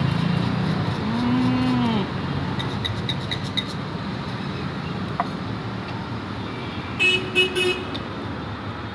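Street traffic: vehicle engines running with horns honking now and then, including a quick run of short toots about seven seconds in.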